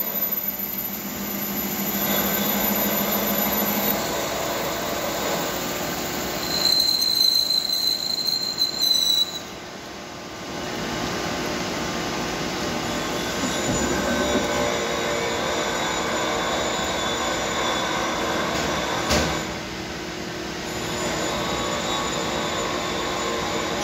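CNC lathe machining a groove in a spinning metal workpiece with a G75 grooving cycle under flowing coolant: steady machine running with several held tones. It gets louder about seven seconds in, with a high shrill squeal from the cut for a couple of seconds, then drops back, and there is one short click near the end.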